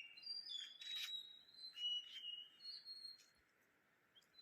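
Several wild birds calling in the morning: short clear whistled notes and chirps overlapping. It is busiest in the first two or three seconds, then falls almost quiet before a call near the end.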